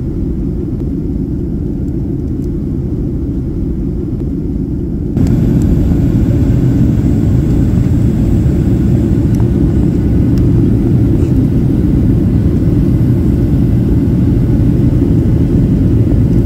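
Steady low rumble of a Boeing 737 jet airliner's cabin during descent: engine and airflow noise heard inside the passenger cabin. It steps up louder about five seconds in, then holds steady.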